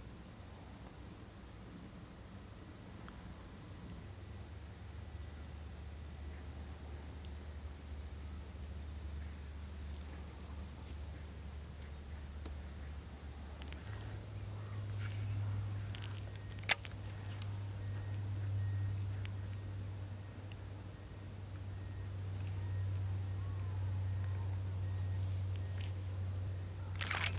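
Steady chorus of insects chirring in two high, unbroken tones, over a low steady hum. A single sharp click sounds about two-thirds of the way through.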